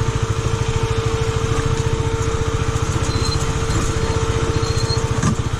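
KTM 250 Duke's single-cylinder engine running steadily at low revs, with a fast, even beat of exhaust pulses and a thin steady whine over it.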